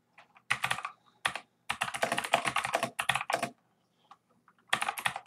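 Incredibly loud computer keyboard typing: rapid runs of keystrokes, with a pause of about a second near the end before the typing starts again.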